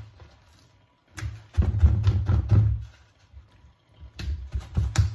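Hands handling and patting raw turkey cutlets with a paper towel on a plastic cutting board: a few short bursts of dull thumps and rustling, with gaps between them.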